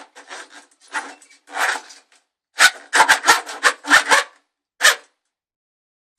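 Metal drain snake cable rasping and scraping in the toilet as it is worked, a run of short strokes, loudest and quickest in the middle, a few carrying a dull knock.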